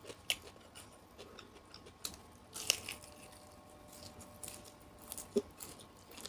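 Close-up eating of asinan Betawi: biting and chewing raw vegetables and fruit, with scattered short crunches and wet clicks, the sharpest near the start, a little before the middle and near the end.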